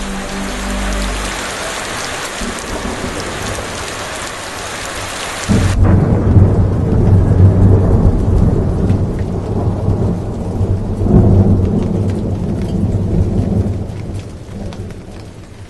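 Rain falling on a puddle and wet gravel. About five seconds in it gives way abruptly to low rolling thunder, which swells twice and fades toward the end.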